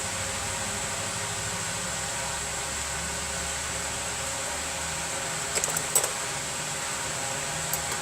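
Steady fan-like hum and hiss in the background, with a few small sharp clicks about five and a half to six seconds in and two more near the end, as phone parts are handled during reassembly.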